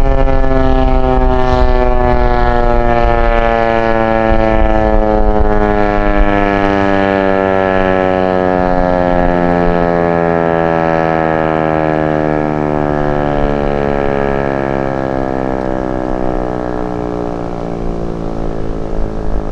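American Signal Corporation T-121 tornado siren winding down at the end of its alert signal: one tone sliding slowly and steadily lower in pitch, growing quieter toward the end.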